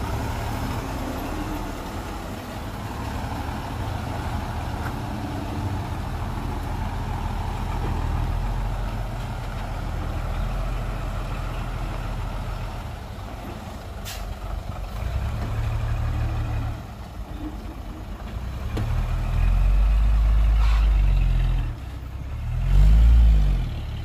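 Heavy diesel engine of construction machinery running steadily, then surging louder in bursts over the last few seconds.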